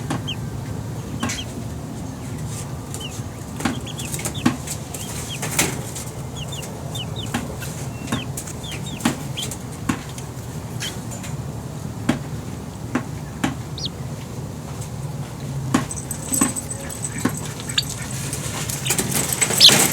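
Young chickens peeping in short, high chirps scattered throughout, with irregular sharp clicks and taps over a low, steady background noise.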